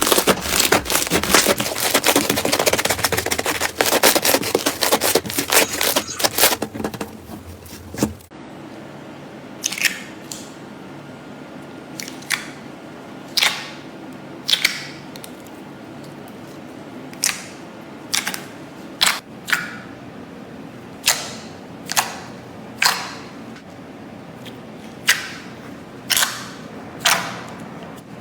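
Slime being squeezed and kneaded by hand, making a loud, dense crackling. About eight seconds in it gives way to single sharp clicks, roughly one every second, as slime is pressed and released.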